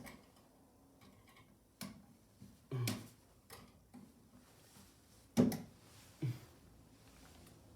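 Scattered light clicks and knocks, five or six of them, the loudest about five and a half seconds in: hand work with a screwdriver and wire on an electrical wall outlet.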